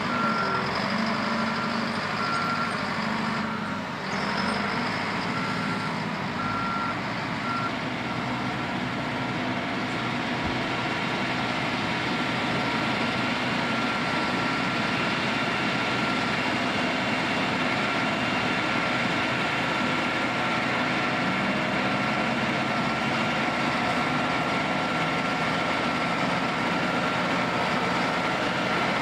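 Heavy construction machine's engine running steadily, with a reversing alarm beeping over it for the first several seconds. The beeping stops, and a steady high tone runs through the later part.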